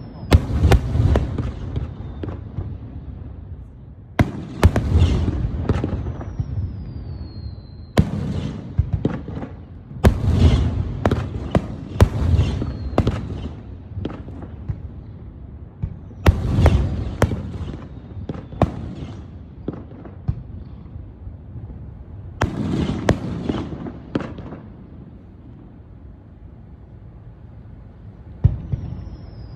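Fireworks display: aerial shells bursting in clusters of sharp bangs, each followed by a low rumbling boom and crackling, about every few seconds. A thin falling whistle sounds twice, and the bursts are fewer and quieter near the end.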